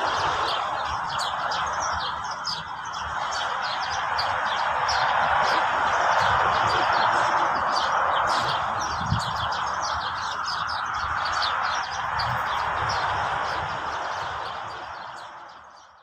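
Small birds chirping rapidly and continuously over the steady rush of a waterfall, the whole fading out over the last couple of seconds.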